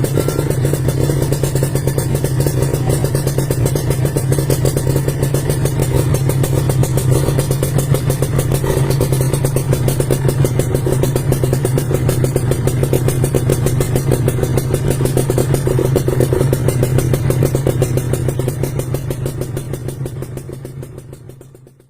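Kawasaki Ninja 150 R/RR's two-stroke single-cylinder engine running through an aftermarket racing exhaust, held at a constant speed with a steady, even note, easing off slightly near the end.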